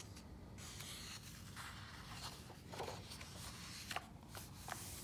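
Pages of a hardcover picture book being turned by hand: soft paper rustling and sliding, with a couple of light taps near the end.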